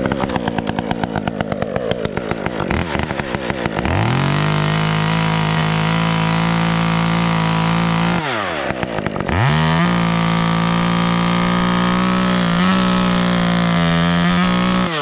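Chainsaw running at a low, uneven speed, then throttled up about four seconds in and held at a steady high pitch while cutting into the oak. It eases off briefly just past halfway, revs straight back up, and holds full throttle until it drops off at the end.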